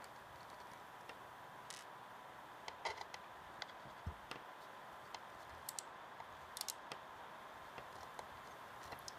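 Faint, irregular small clicks and light taps of a screwdriver and tiny screws against the Mac Mini's internal parts during disassembly, over a steady hiss with a faint high tone.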